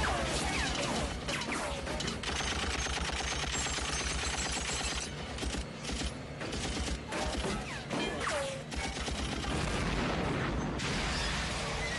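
Action-film gunfire: a rapid fusillade of shots, with bullets striking and sparking off an armored truck, mixed over the film's music score.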